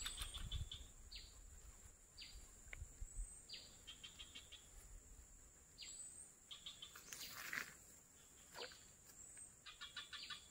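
Quiet natural ambience of wild birds calling: repeated short falling whistles and quick trilled chirp runs, with brief rising notes higher up, over a steady high insect drone. A brief rustle comes a little past halfway.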